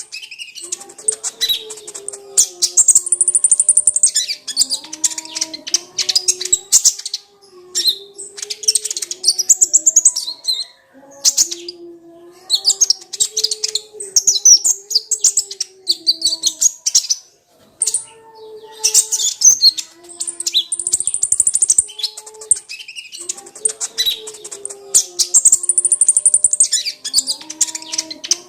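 Kolibri ninja (a sunbird) singing in fast, high chirping trills, in bursts of a few seconds with short pauses between, over a quieter lower tone that steps up and down.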